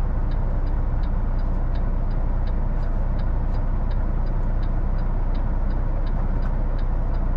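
Semi truck's diesel engine idling steadily, heard from inside the cab while stopped at a light, with a faint light ticking about twice a second.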